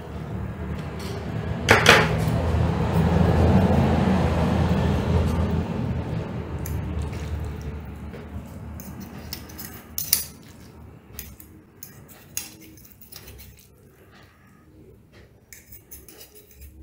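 Stainless fork and spoon clinking and scraping against a ceramic plate while twirling spaghetti, with one sharp ringing clink about two seconds in and scattered light clinks later. A low rumbling noise is loudest in the first few seconds and fades by the middle.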